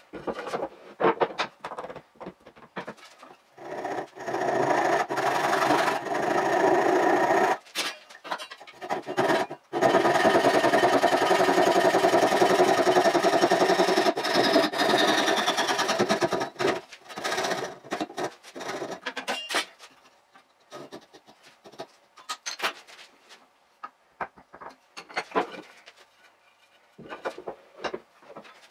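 Hand sawing of wood with a Japanese pull saw, played back fast, so the strokes run together into a rapid rasp. Spells of rasping are broken by quieter stretches of clicks and knocks, mostly in the second half.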